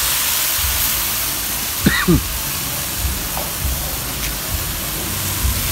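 Minced pork with garlic and chili sizzling steadily in a wok over a gas burner, left unstirred. A brief rising chirp about two seconds in.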